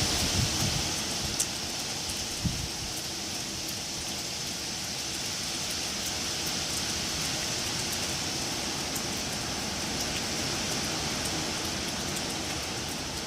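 Wind blowing through trees, a steady rushing rustle of leaves and branches, a little louder in the first second. A couple of brief low thumps come in the first few seconds.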